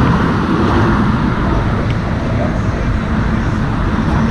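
Steady noise of car traffic passing on the bridge roadway below the walkway.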